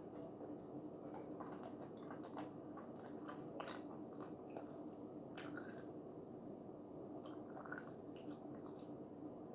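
A child chewing, with faint, irregular small crunches and mouth clicks; a steady low hum runs underneath.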